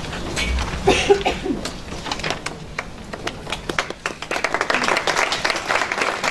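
Audience applauding, a few scattered claps at first that thicken into fuller applause about four seconds in.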